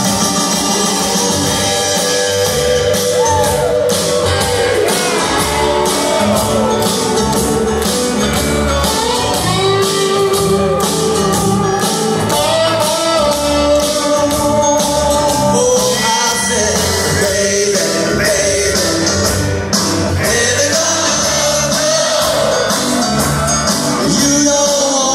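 Live rock band playing on electric guitars, bass and drums, with a steady beat and a melody line that slides in pitch over the top.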